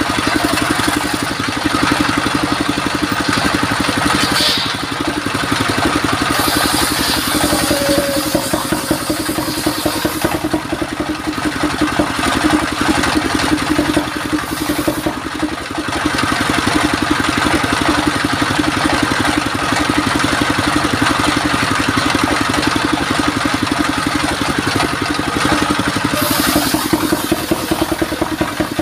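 Belt-driven circular saw ripping a mahogany log into boards, the blade's cutting noise rising and falling from cut to cut and dropping away briefly about halfway. Underneath, the stationary engine that drives it runs steadily with a fast, even beat.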